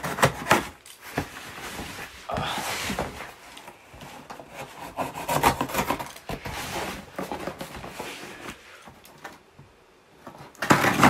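Scissors cutting packing tape and scraping along a cardboard shipping box, with the cardboard rubbing and knocking as the box is turned. It comes in irregular bursts of scraping and clicks, loudest near the start and the end.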